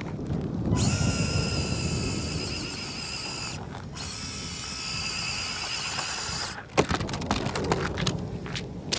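Axial SCX24 1/24-scale RC crawler's electric motor and gear train whining under throttle, a high steady whine that drops out for a moment about three and a half seconds in and stops just before seven seconds. Scattered crackling ticks of the tires working over dirt come before and after it.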